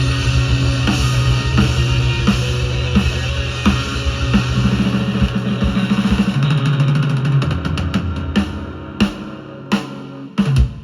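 Rock band playing with drum kit, bass and electric guitar. Near the end the steady playing drops away into a few separate loud accented hits.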